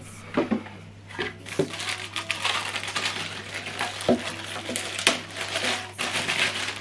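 Thin plastic bag crinkling and rustling as a small speaker is pulled out of its wrapping, with a few knocks as the speaker and bag are handled.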